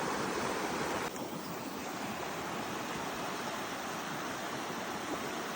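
Steady rush of flowing river water, a little softer from about a second in.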